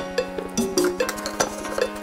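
Background music with a quick percussive beat and short pitched notes.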